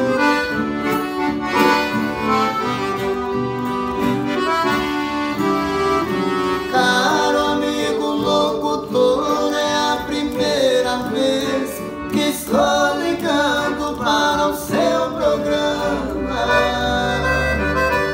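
A Paolo Soprani piano accordion and a strummed acoustic guitar playing a song together. Voices join in singing about a third of the way through.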